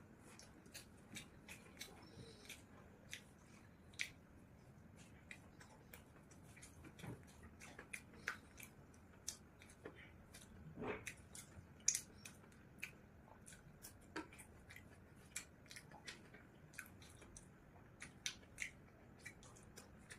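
Faint, irregular crunching and chewing clicks of someone eating panipuri, a few sharp crunches a second with short pauses between.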